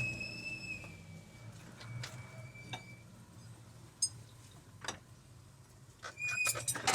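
Metal hand tools and parts clinking and tapping. A ringing metallic tone at the start fades over about three seconds, single clicks follow at intervals, and a quick run of clicks comes near the end.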